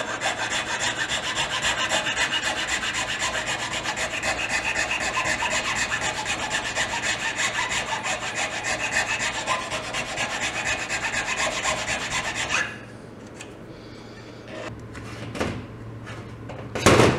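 Small hand file rasping back and forth in a mounting hole of a throttle position sensor clamped in a vise, lengthening the hole into a slot. The filing stops suddenly about three-quarters of the way through, followed by a few light knocks and one louder clatter near the end.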